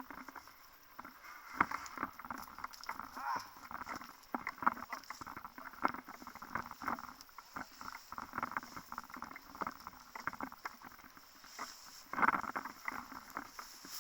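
Irregular rustling with scattered light knocks close to the microphone, the movement noise of a player's clothing and gear.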